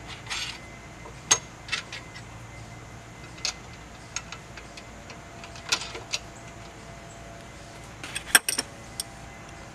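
Scattered small metallic clicks and clinks of 5/16-inch bolts and nuts being handled and fitted into a steel mower-deck mount bracket, with a cluster of louder clinks about eight seconds in.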